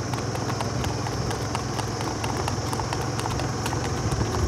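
Hoofbeats of two Marwari horses on a paved road: a quick, uneven clip-clop of many hoof strikes over a steady low hum.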